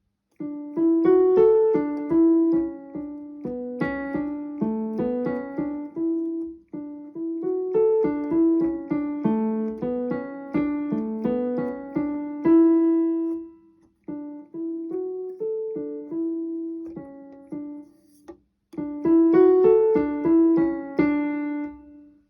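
Yamaha DGX-220 digital keyboard playing a melody of decaying piano-like notes, pausing briefly twice in the second half.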